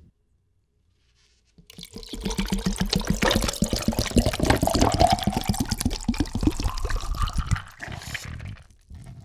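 A drink poured from a plastic bottle into a glass jar of ice cubes, starting about two seconds in, with rapid glugging and a pitch that rises steadily as the jar fills. The pouring stops a little before the end.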